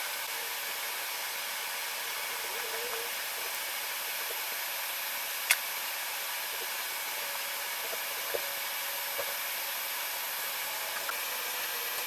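Steady hiss of moving air, like a fan or blower, with one sharp click about five and a half seconds in.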